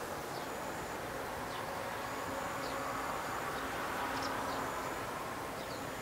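Outdoor ambience: a steady background hiss with a faint high insect trill that stops and starts, a few faint short falling bird chirps, and a low hum that swells in the middle.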